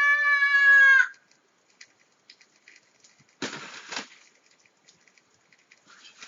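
A long, loud, high-pitched cry held on one slightly falling note, cutting off about a second in, followed about three and a half seconds in by a brief noisy rustle or scuffle.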